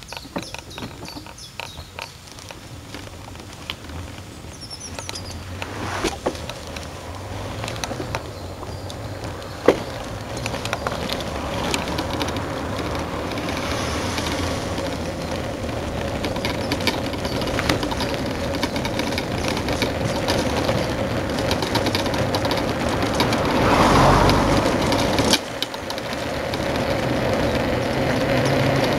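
Bicycle-towed dog trailer rolling along pavement: a steady rumble of tyres and rattle of the trailer frame that grows louder as it picks up speed, with scattered clicks and knocks. Birds chirp in the first few seconds.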